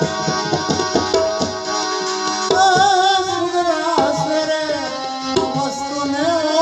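Indian music with tabla playing a steady rhythm under sustained held chords. A wavering melody line comes in about two and a half seconds in.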